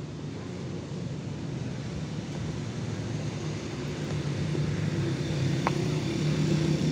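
Engine rumble of road traffic growing steadily louder as a motor vehicle approaches, with a brief high chirp near the end.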